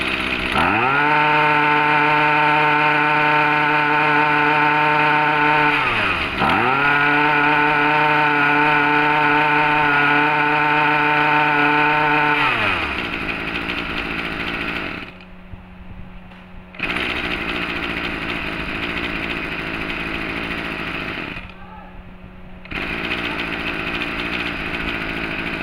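Small two-stroke engine of a Tanaka 24cc brush cutter running at high revs. About six seconds in the throttle is briefly let off, and the revs dip and climb straight back. Around halfway through the revs fall away, and the engine runs on at a lower, rougher note with two short lulls.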